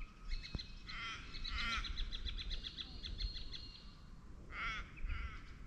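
Wild birds calling: short harsh calls about a second in and again near the end, with a quick run of short high notes between them.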